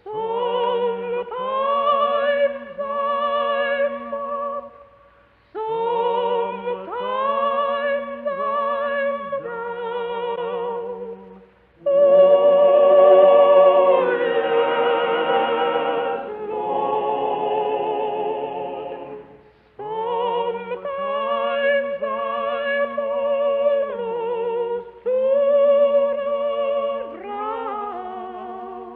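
Soprano singing a slow spiritual with a wide vibrato, in long phrases broken by short pauses, over a lower sustained accompanying line.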